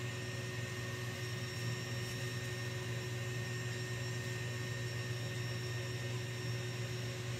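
KitchenAid stand mixer with its wire whisk attachment running steadily, a constant motor hum and whine, beating egg whites and sugar toward stiff-peaked meringue.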